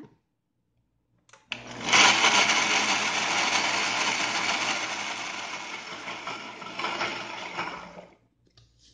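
Countertop blender with a glass jar starting up about a second and a half in and blending cubed mango with sugar, fresh cream and a little milk, then cutting off about a second before the end. It is loudest just after starting and eases slightly as it runs.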